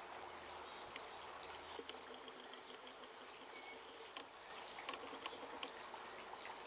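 Faint outdoor garden ambience: a soft, even hiss with scattered small ticks and a couple of brief high chirps.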